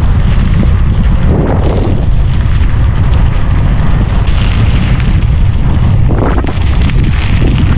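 Wind buffeting the microphone in a heavy, steady rumble as a mountain bike speeds downhill, over a hiss of tyres rolling on a dirt track.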